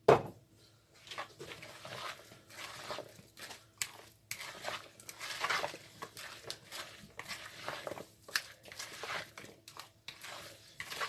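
Kitchen utensil and bowl sounds while a salad is being prepared: a sharp knock right at the start, then irregular scraping and rustling strokes of a spoon working the ingredients in a bowl.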